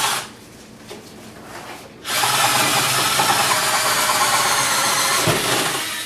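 Cordless drill driving the mounting bolts down through the cabinet floor into the top of an over-the-range microwave. It runs briefly at the start, stops for about two seconds, then runs steadily for about four seconds.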